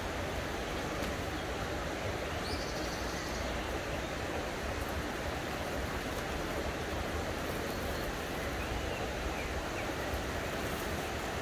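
Steady rushing of a river flowing close by, an even wash of water noise.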